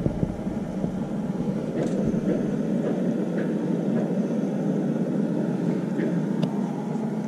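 Low-powered electric kettle heating water that is starting to boil: a steady rumbling of the water, with a few faint ticks.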